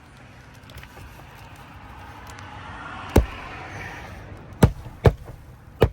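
Hammer blows on roofing nails in asphalt shingles: four sharp, uneven strikes in the second half, after a scraping, rustling noise that swells and fades over the first four seconds.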